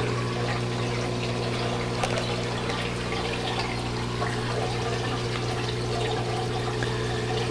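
Aquarium water trickling and pouring steadily through a DIY overflow siphon and filter, over the steady electric hum of the return pump.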